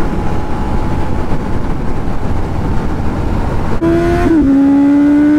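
Motorcycle riding with wind and road rumble. About four seconds in, a motorcycle engine is opened up hard and gets much louder, dips in pitch briefly as it shifts up a gear, then keeps climbing as it accelerates.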